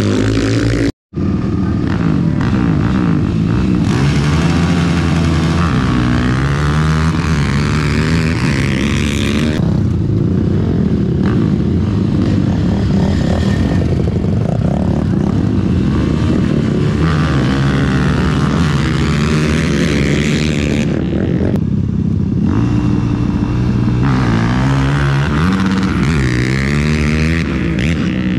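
ATV engines running and revving around a dirt arena, their pitch rising and falling over and over as the quads accelerate and back off. The sound drops out briefly about a second in.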